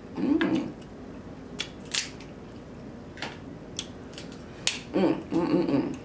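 Eating snow crab legs: wet mouth sounds and chewing, broken by about five sharp clicks of crab shell. The chewing gets louder in the last second.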